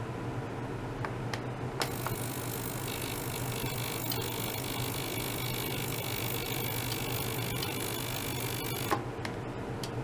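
Small ultrasonic cleaning bath switching on with a click about two seconds in, then a steady high hiss with a thin whine, the cavitation noise of the water being sonicated, cutting off with a click about seven seconds later.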